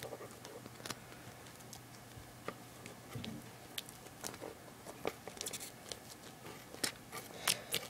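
Scissors cutting a strip of duct tape lengthwise: faint, irregular snips and crinkles of the tape.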